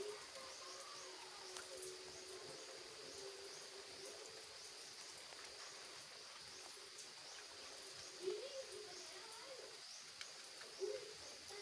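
Faint animal calls: a low wavering call near the start, then two short louder calls about eight and eleven seconds in, over a faint high chirping that repeats about every half second.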